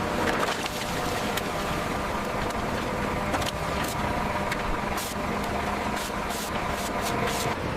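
A steady engine or machinery hum under a noisy bed, with scattered sharp clicks and rattles over the second half.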